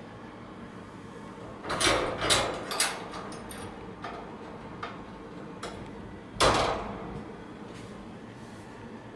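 White wire pet cage being handled at its metal latch and door: a cluster of metal clanks and rattles about two seconds in, a few light ticks, then one loud clank about six and a half seconds in.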